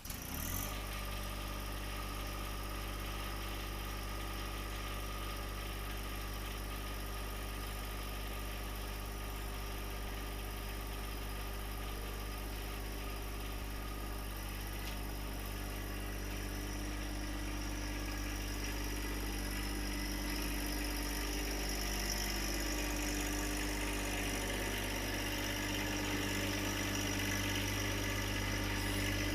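Tractor engine running steadily at low speed, its pitch stepping up slightly about 22 seconds in and getting a little louder toward the end.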